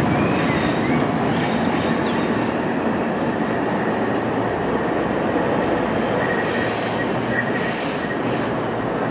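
Rumble of a train of two Class 73/1 locomotives and 4TC coaches running away along the track, slowly fading, with a few faint, brief wheel squeals in the second half.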